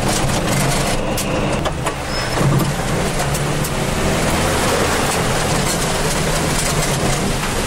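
4WD engine running steadily while driving through mud and shallow water, with water and mud spattering against the body and windscreen in scattered clicks.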